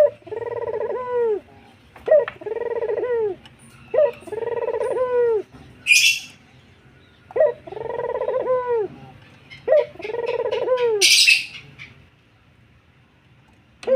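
A puter (Barbary dove) cooing over and over: about five drawn-out coos, each with a sharp start and a falling tail, a second or so apart. Two brief hissing rustles come between the coos, around the middle and near the end.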